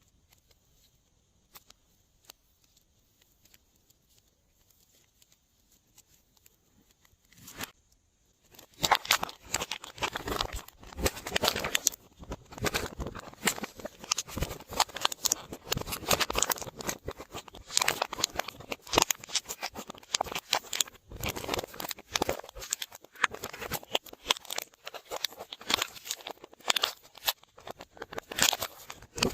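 Glossy slime being squeezed and worked by hand, giving a dense run of sticky clicks, pops and crackles that starts about eight seconds in after near quiet.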